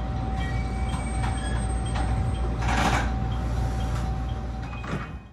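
BEC819 DENCHA battery-electric train heard from the cab: a steady low hum with a steady whine over it, and a short burst of hissing air about three seconds in.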